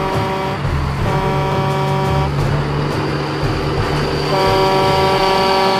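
Truck air horn sounding three times over a steady low engine rumble: a short blast at the start, a longer one about a second in, and another near the end.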